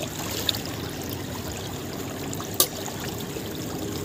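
Shallow river water running and trickling steadily, with a couple of light clicks, the sharpest about two and a half seconds in.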